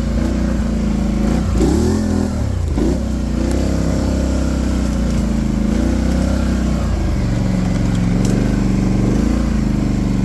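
2019 Polaris Sportsman 850 SP ATV's twin-cylinder engine running while the ATV is ridden, its pitch rising and falling with the throttle in the first few seconds, then holding steadier.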